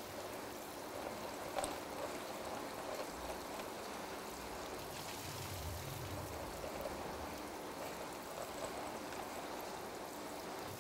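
Hot tap water running steadily into a sink as small stainless steel valve parts are rinsed under it, with a light click about a second and a half in.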